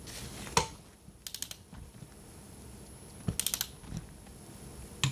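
A click-type torque wrench tightening exhaust manifold nuts: two short runs of quick ratchet clicks as the handle is swung back, with single sharp clicks and a knock between them.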